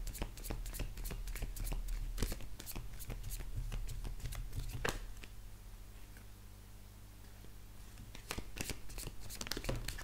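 A deck of oracle cards being shuffled by hand, a quick run of light card clicks and flicks. The shuffling pauses for a few seconds just past the middle, then resumes near the end.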